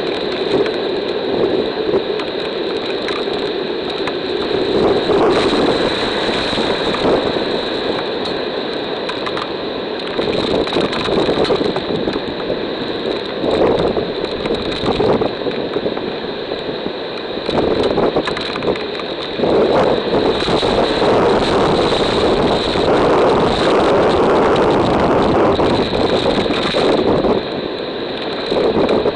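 Hurricane-force wind and rain battering the palm fronds and a trail camera's microphone. The noise swells and eases in gusts and is heaviest in the second half, with a steady high tone running under it.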